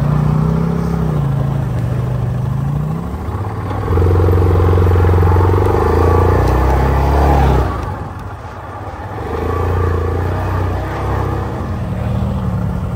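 Off-road vehicle engines, an ATV and side-by-sides, running and revving on a dirt trail. A steady engine drone grows louder about four seconds in, holds, then falls away sharply just before eight seconds and comes back more quietly a second later.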